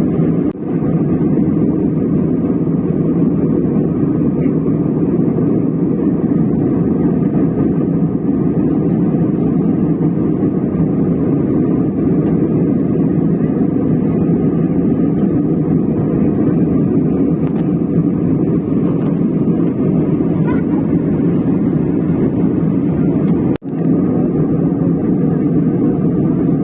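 Steady cabin noise of an airliner in cruise, heard from a passenger seat by the window: the dense, even rush of engines and airflow, which drops out briefly twice, about half a second in and near the end.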